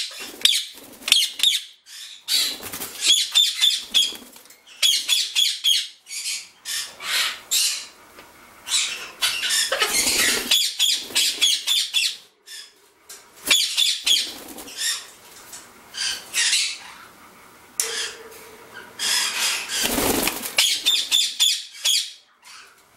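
Indian ringneck parakeets calling in repeated bursts of short, rapid, high squawks. Two louder rustles come through about ten and twenty seconds in.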